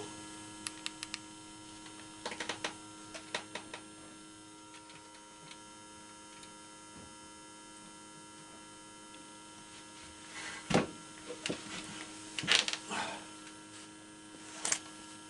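Vintage tube car radio powered up and buzzing with a steady electrical hum from its vibrator power supply, with no station coming through. Scattered clicks and a few louder knocks from handling sound over it, the loudest a little past the middle.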